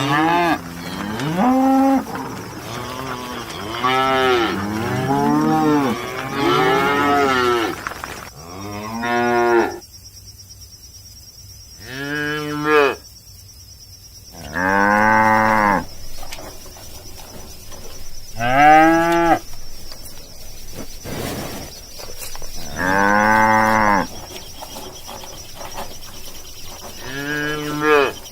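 Cattle mooing repeatedly, about a dozen separate calls of half a second to a second each, some in quick succession and others with pauses of a few seconds between them.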